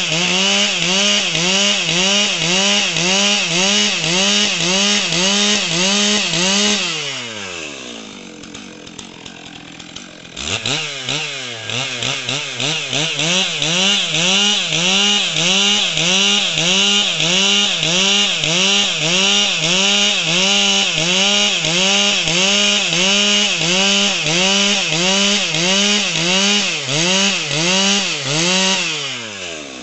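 Stihl MS 661 chainsaw's big single-cylinder two-stroke engine at full throttle cutting through a log, its pitch rising and falling about twice a second as the chain bites. About seven seconds in the revs fall away and stay low for a few seconds, then climb back for a long second cut. The revs drop again just before the end.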